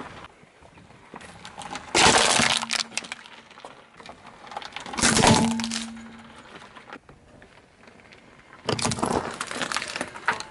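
Things being crushed under a slowly rolling car tyre: three bouts of cracking and crunching, about two seconds in, about five seconds in as a green plastic toy breaks apart, and a longer crackling run near the end.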